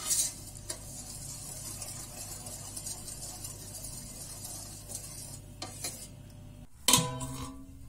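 Metal spoon stirring a thin grape-molasses-and-water mixture in an enamel bowl, with a steady swishing and small clicks of the spoon against the bowl. A louder ringing knock of the spoon on the bowl comes about seven seconds in.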